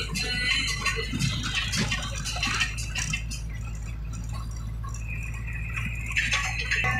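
Vehicle engine running with a steady low drone, heard from inside the cab, with loose rattling and clicking over the first few seconds. Music comes in near the end.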